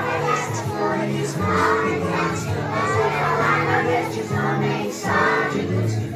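Young children singing a song together with adults, over instrumental accompaniment with held low bass notes.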